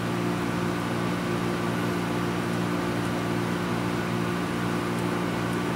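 Steady electrical hum of a running machine, unchanging throughout, with a few faint clicks of small parts being handled near the end.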